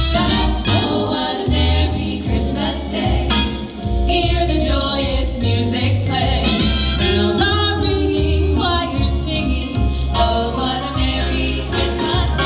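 A vocal trio singing a Christmas song in harmony over a backing track with jingle bells.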